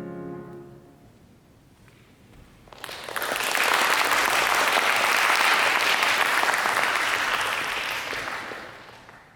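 A piano's last chord rings and dies away, then an audience applauds, starting about three seconds in and fading out near the end.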